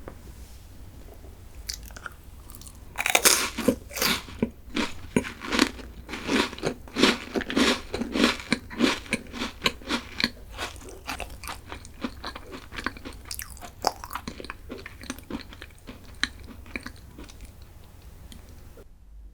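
Close-miked biting and chewing of a crunchy chocolate snack. It starts with a loud crunchy bite about three seconds in, followed by rapid crunching chews that grow softer and then stop suddenly near the end.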